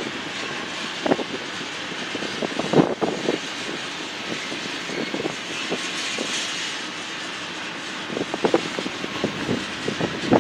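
A train rolling past: a steady rumble with a few scattered clacks, the loudest of them about three seconds in and near the end.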